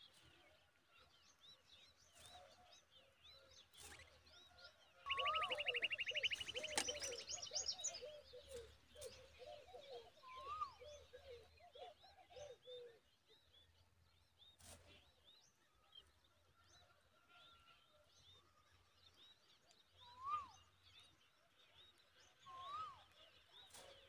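Common babbler and its nestlings calling at the nest: faint high chirps throughout. About five seconds in comes a louder burst, a fast high trill over a run of lower falling notes lasting several seconds, with single short rising notes now and then.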